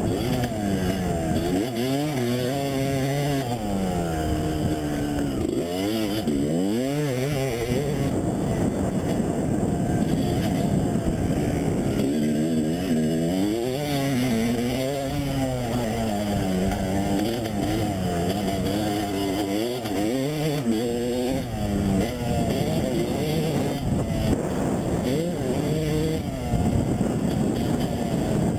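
Motocross dirt bike engines revving hard as the bikes ride the track, the pitch climbing and dropping over and over through throttle changes and gear shifts.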